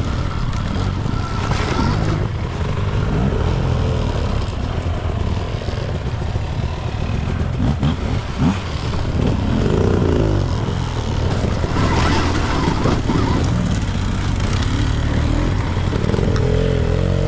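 Stark Varg electric dirt bike being ridden off-road, giving a steady, loud rumble of drive and ground noise with wind on the microphone. Short rising and falling tones come in about ten seconds in and again near the end.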